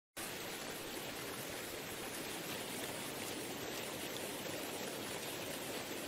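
Waterfall: a steady, even rush of falling water, beginning abruptly a moment in.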